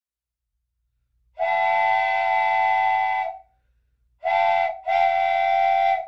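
Steam locomotive whistle sound effect: one long blast, then a short one and another long one, each a steady chord of several notes.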